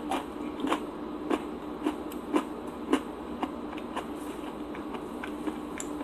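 Crisp crunches from chewing a cookies 'n' creme white chocolate bar with cookie bits, about one every half second, growing fainter and sparser after about three seconds. A steady low hum runs underneath.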